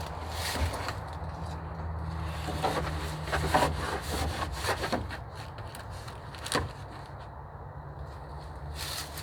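Wood being handled and worked by hand: irregular scraping, rubbing and knocking of sticks and poles, with one sharper knock about six and a half seconds in.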